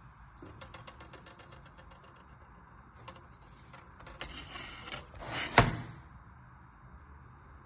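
Black plastic laptop bottom case being handled: a quick run of light clicks, then a rustling scrape that builds to one sharp plastic snap about five and a half seconds in.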